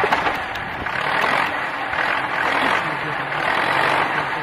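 Farm tractor's diesel engine running steadily.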